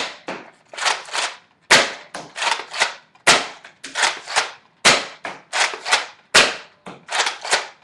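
Modified Nerf Longshot blaster, a spring-plunger dart blaster with a pump-action foregrip, being rapidly primed and fired over and over. It gives sharp plastic clacks: a loud strike about every second and a half, each followed by one or two lighter clacks from the pump slide.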